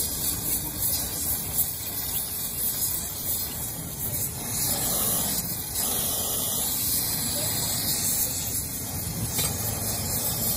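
Hand-held gas torch flame hissing steadily as it heats a steel gear to red heat.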